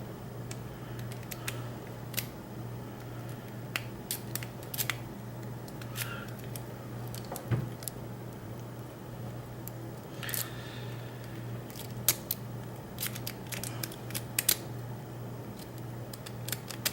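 A steel rake pick being raked in and out of a Master Lock V-Line padlock's keyway under light tension, giving irregular light metallic clicks and scrapes as it bounces the pin tumblers.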